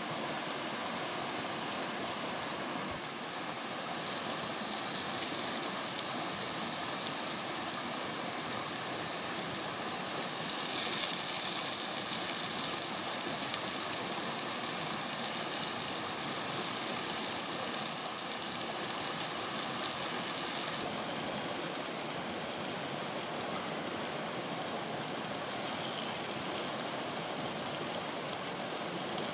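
Steady rushing of a small rocky stream. A brighter hiss rises about ten seconds in and again near the end.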